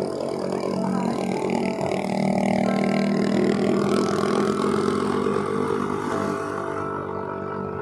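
Yamaha NMAX 155 scooter's single-cylinder engine running as it rides along, getting louder in the middle and easing off near the end.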